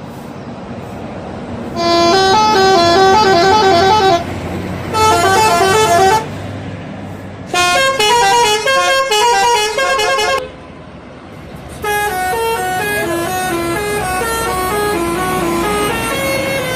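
Bus telolet horn, a multi-trumpet musical air horn, playing quick stepped melodies in four bursts, about two seconds in, about five seconds in, about seven and a half seconds in, and from about twelve seconds on, over a bus engine running.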